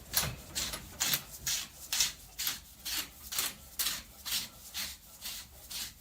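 Rhythmic rasping scrapes, about two a second, as the threaded cup of an Izh motorcycle front fork is turned onto the fork leg by hand.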